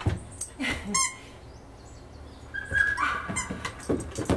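Australian Shepherd puppy giving a few short, high barks as it jumps for a toy held above it, with light knocks in between.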